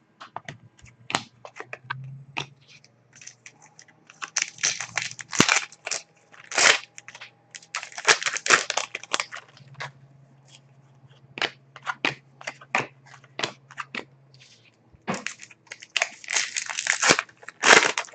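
Trading card pack wrappers crinkling and cards being handled and slid against each other: bursts of crackly rustling with many sharp clicks between them.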